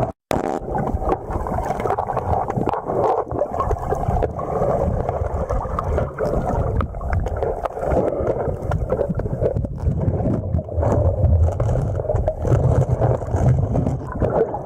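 Muffled rushing of river water heard underwater, with many small clicks and knocks running through it.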